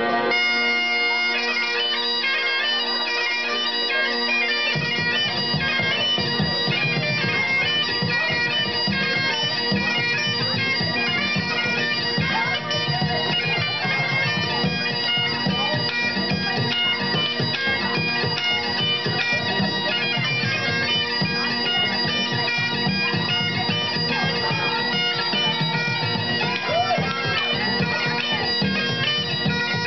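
Great Highland bagpipe playing a lively tune over its steady drones. A bodhrán frame drum joins about five seconds in, beating time under the pipes.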